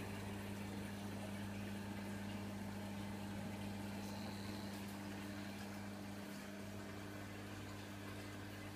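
Steady low hum over a faint watery hiss from reef aquarium equipment: the pumps circulating the tank's water.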